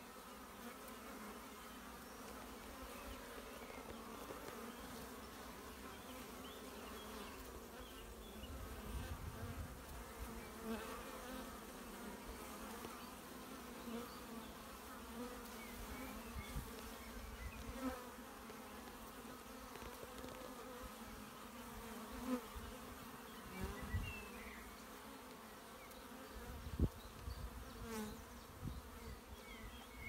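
Honeybees buzzing around a hive entrance: a steady hum of many bees, with single bees flying close past and a few brief low rumbles on the microphone.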